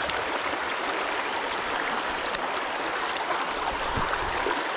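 Shallow creek water flowing steadily, a constant rush of running water, with a few faint ticks about halfway through.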